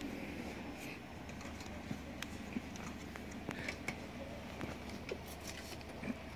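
Faint scattered clicks and rustling of hands working on a recliner mechanism, unclipping a plastic cable clip and handling the release cable by its coil spring.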